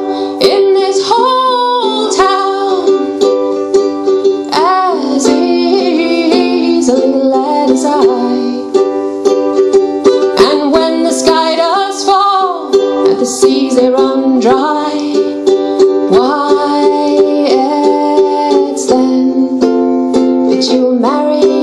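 Ukulele strummed steadily under a woman's singing voice carrying a slow, gliding, ornamented melody: a traditional folk song.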